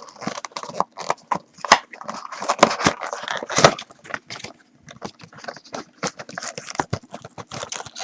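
Hands opening a cardboard trading-card blaster box: irregular scraping, tearing and crinkling with many small clicks and taps.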